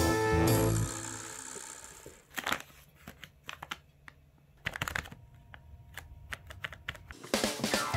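Background music fades out, then a few scattered light clicks and rustles.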